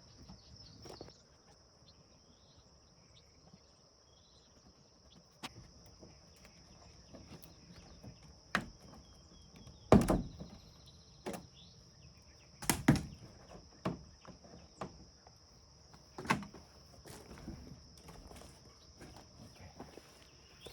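Irregular knocks and clunks from work on a vintage camper's wall and its built-in air conditioner unit, the loudest about ten and thirteen seconds in, over a steady high-pitched insect drone.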